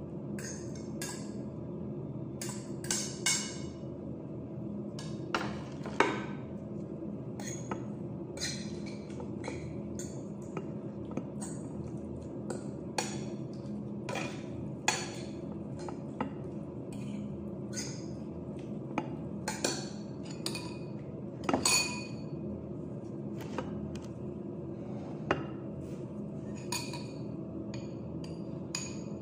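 Metal utensils clinking and scraping against a plate, a frying pan and a ceramic bowl as food is scraped off, stirred and spooned, in irregular sharp knocks, the loudest about six seconds in and again about twenty-two seconds in. A steady low hum runs underneath.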